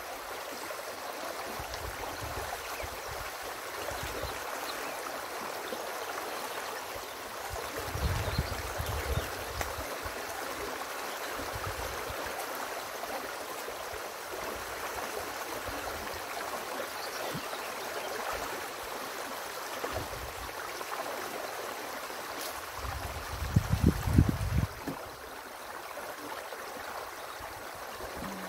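Small river water rushing and gurgling steadily through a partly removed beaver dam. Two short bursts of low rumbling come about eight seconds in and a few seconds before the end; the second is the loudest.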